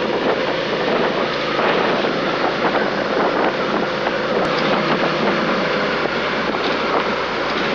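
Suzuki SV650's V-twin engine running steadily under way, mixed with constant wind noise on the microphone.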